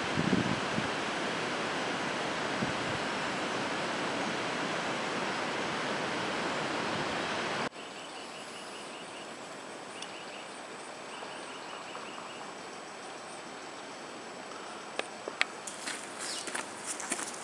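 Steady rush of running water that cuts off abruptly about eight seconds in, giving way to quieter woodland air with faint, repeated bird chirps. Near the end come crunching footsteps on a gravel path and the sharp clicks of trekking poles striking the ground.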